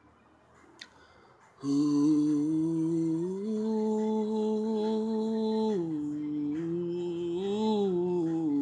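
A man humming a slow, unaccompanied melody in long held notes. It begins after a short pause, steps up to a higher note and holds it, falls back, and lifts briefly near the end.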